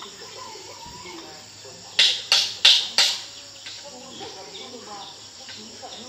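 Steady chirring of insects, broken about two seconds in by four loud, sharp bursts in quick succession, each dying away quickly.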